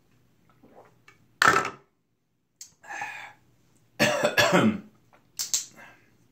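A man coughing and clearing his throat in several harsh bursts after a shot of Wild Turkey American Honey bourbon liqueur, the longest a drawn-out rasping cough about four seconds in.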